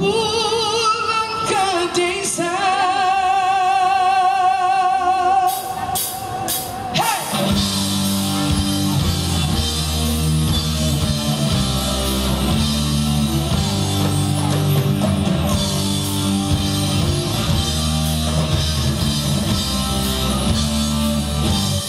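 Live band performance: a woman sings long held notes with vibrato over sparse backing, a few sharp clicks sound about six seconds in, then the full band comes in with drums, bass and electric guitar under her singing.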